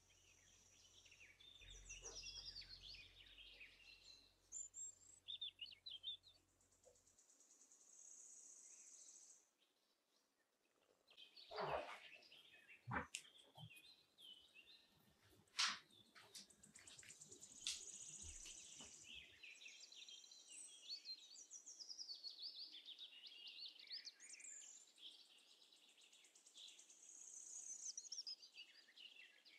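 Faint birds chirping, many short high calls. A few sharp clicks come around the middle.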